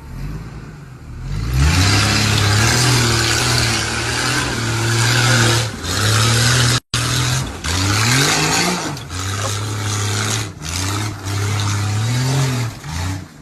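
Off-road 4x4 engine revving hard several times, its pitch climbing and dropping, over a loud steady hiss. The sound cuts out for an instant about halfway through.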